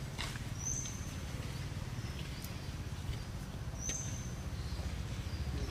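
Outdoor forest ambience: a steady low rumble with a few faint clicks, and a short high chirp twice, a second and about three seconds in.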